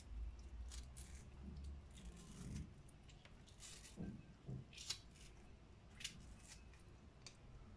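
Faint, crisp strokes of a small kitchen knife cutting a thin strip of skin from a tomato, a few scattered cuts, with a couple of soft taps about halfway through.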